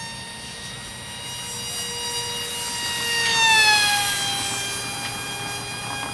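Electric motor and propeller of a small radio-control delta plane whining at high speed. The whine grows louder as the plane passes, and its pitch drops about three and a half seconds in as it flies by and away.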